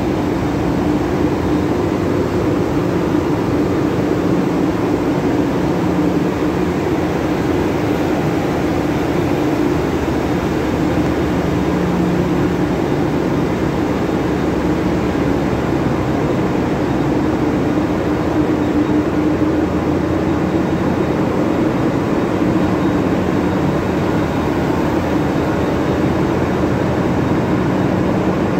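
Steady loud din of a ship's running engine-room machinery, the diesel engines, propeller shaft and sea water pumps together, with a constant low hum through it.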